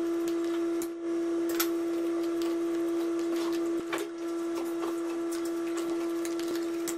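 A metal spoon clicking and scraping against a ceramic bowl while gram-flour batter is mixed, a few sharp taps spread through. A steady mid-pitched electronic-sounding tone is held under it throughout and is the loudest thing.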